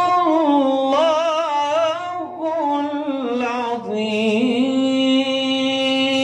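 A man chanting Quran recitation (tilawah) into a handheld microphone: one long melodic phrase with ornamented, wavering pitch that drops lower about two-thirds of the way through and settles into a long held note.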